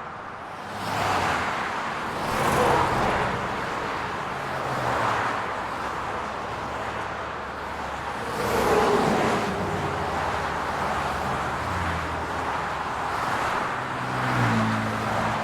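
Road traffic in a city street: a steady hum of tyres and engines, swelling several times as cars drive past, one with a falling engine note as it goes by.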